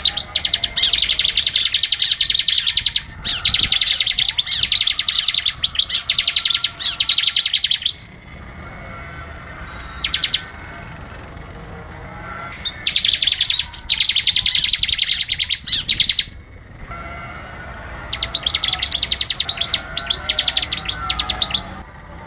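Bar-winged prinia (ciblek) song: fast, high-pitched trills of rapidly repeated notes in long bouts of several seconds, separated by short pauses, with a brief burst in one of the gaps.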